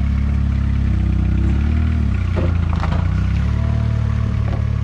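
A vehicle engine running steadily at low revs.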